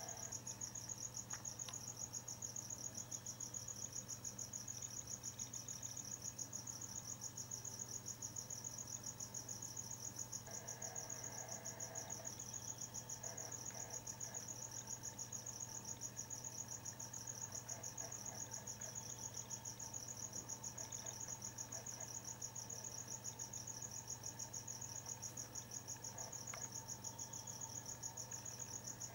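Crickets chirping in a steady, fast, even pulse, with a low steady hum beneath.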